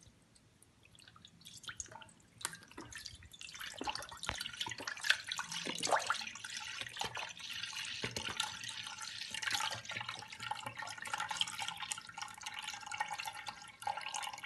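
Milk pouring from a carton into a pot, a steady splashing stream that grows louder over the first few seconds and thins to a trickle near the end.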